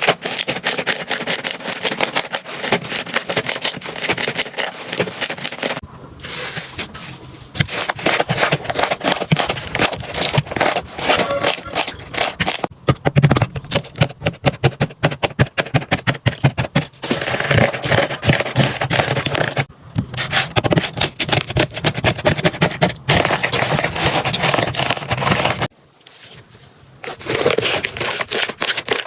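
Slime being pressed, poked and stretched by hand, giving fast runs of crackling clicks and pops. The sound comes in several short takes with brief breaks between them.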